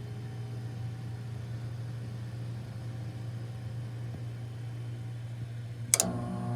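Steady low mechanical hum from an HVAC unit running, with a single sharp click near the end, after which the hum changes.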